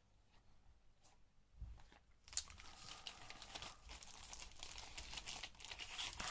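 Clear plastic bag crinkling and rustling as hands handle it and the cardboard piece inside is slid out. It starts about two and a half seconds in, after a nearly quiet start, and goes on as dense crackling to the end.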